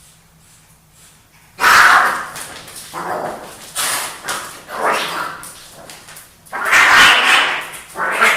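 Two male house cats fighting. About one and a half seconds in comes a sudden loud burst, followed by shorter noisy bursts roughly once a second, with another loud one near the end.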